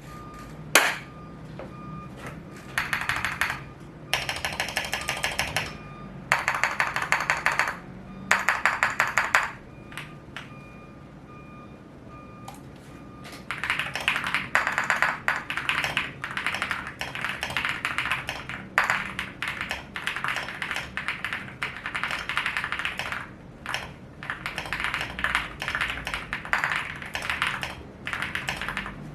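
Typing on a Leobog Hi75 mechanical keyboard with AKKO Pro Creamy Blue tactile switches: fast keystrokes in four short bursts, then a pause of a few seconds, then steady fast typing through the rest.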